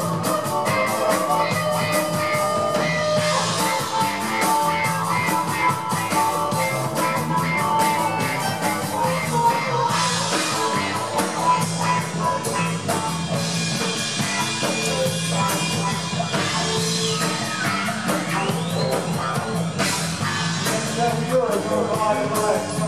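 Live rock band playing: drum kit, electric guitar, bass and keyboards, with a harmonica played through the vocal microphone over the top.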